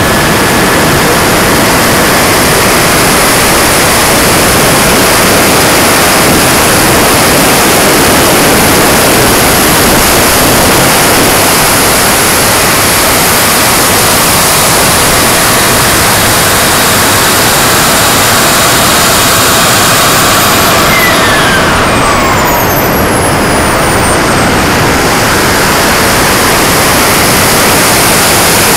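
Model turbine jet engine and rushing air in flight, picked up by a camera mounted on the aircraft: a loud, steady roar. A thin high whine climbs in pitch about halfway through and drops away steeply, with a lower tone, a little past two-thirds of the way in, as the turbine's pitch changes.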